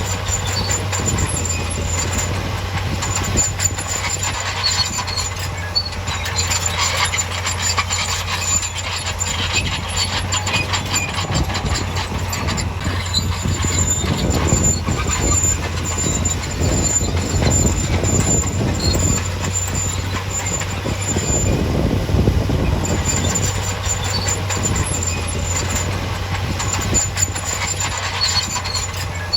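Bulldozer working: its diesel engine running steadily while the steel tracks clank and give a high squeal that comes and goes.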